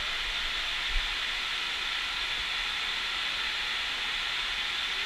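Steady hiss of artificial rain spraying from the rainfall simulator's overhead nozzles and falling across a large hall, with a soft low thump about a second in.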